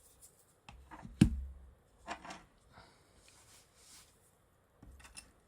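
Small clicks and knocks of phone parts and tools being handled on a work surface during a smartphone reassembly, with one sharp knock and thud about a second in, light scraping in the middle and another soft knock near the end.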